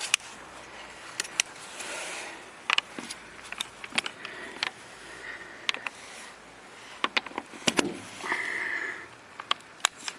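Scattered clicks and knocks of a cordless impact driver and its socket being handled and fitted onto a wheel nut, with a short steady higher-pitched sound lasting under a second near the end.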